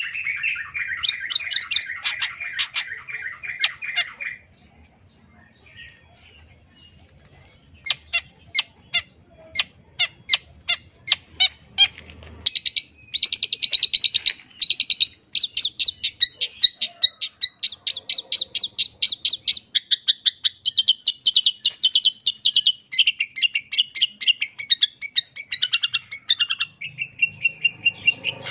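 Long-tailed shrike (cendet) singing. A fast rattle runs for the first four seconds, then comes a short pause and a run of sharp single ticks that speed up. From about halfway a long, rapid, high trill goes on, dropping lower near the end.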